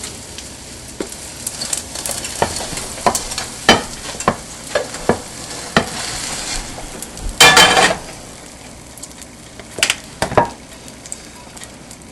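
Tortilla española frying in oil in a pan, a steady sizzle, with a utensil clicking and scraping against the pan. There is a louder scrape about seven and a half seconds in.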